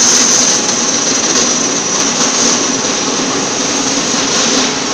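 Electric motor and gearbox driving the lead screw of a 100-ton wheel-type welding rotator, moving a roller section along its rails: a steady mechanical running noise with a high whine that fades about a second in.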